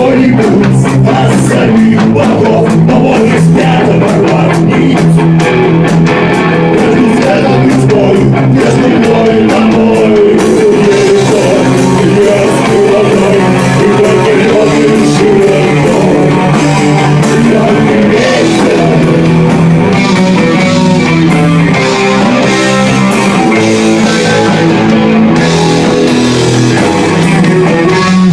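Rock band playing an instrumental passage: electric guitar over a steady drum kit beat, with no vocals.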